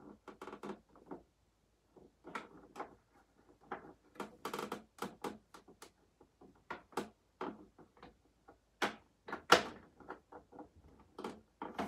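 Hard plastic clicking and knocking at irregular intervals as the clip-on windshield of an L.O.L. Surprise O.M.G. Glamper toy camper is pressed and worked against the camper body, with one louder snap about two-thirds of the way through. The part is not seating easily.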